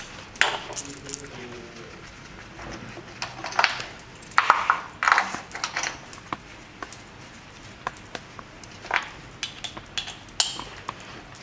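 Scattered light metallic clicks and clinks, with short rustles, from a compression tester's gauge and hose fitting being handled by gloved hands while the gauge is moved from one spark-plug hole to the next in a compression test.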